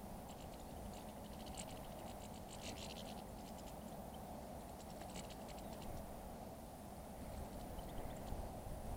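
Birds pecking and scratching at seed and peanuts: clusters of quick, faint clicks, mostly in the first three seconds and again about five seconds in, over steady background noise.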